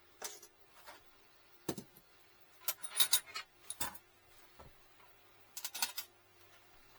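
Small metal objects clinking and rattling as they are handled, in short scattered clusters, the busiest about three seconds in and again near six seconds.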